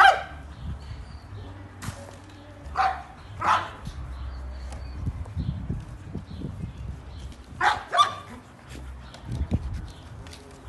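Dogs barking in short single barks: one at the start, two about three seconds in, and two more about eight seconds in.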